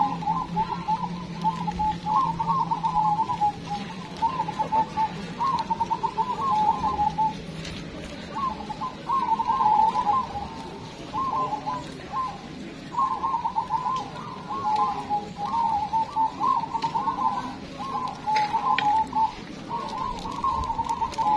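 A chorus of caged zebra doves (perkutut) cooing, their rapid, bubbling call phrases overlapping almost without a break. A low steady hum lies under the first third.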